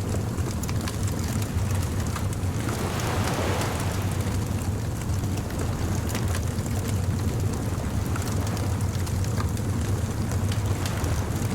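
Bonfire crackling with scattered small pops over a steady low rumble of surf, with a wave washing in about three seconds in.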